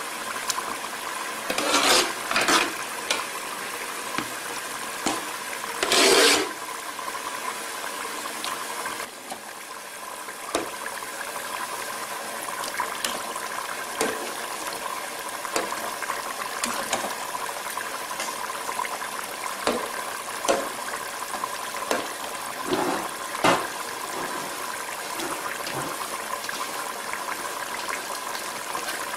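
Grated carrots for halwa simmering in their liquid in an aluminium pot, bubbling and hissing steadily, while a metal spoon stirs and knocks against the pan now and then. There are a few louder bursts of stirring noise in the first several seconds.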